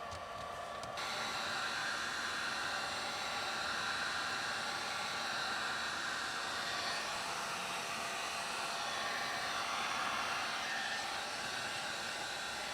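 A motor-driven machine starts about a second in and runs steadily, with a strong hiss-like rush and a faint steady hum through it.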